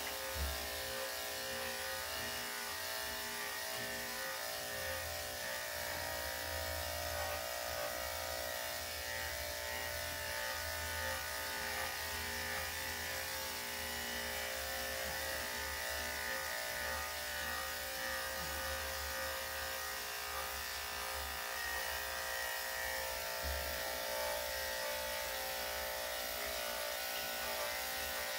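Electric pet grooming clippers fitted with a #5 blade, running with a steady, unbroken buzz as they clip a dog's coat.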